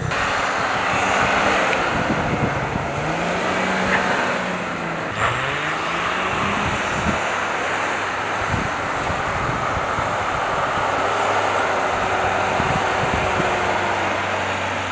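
4x4 engines labouring through deep snow, their pitch rising and falling a few times, over a steady rushing noise.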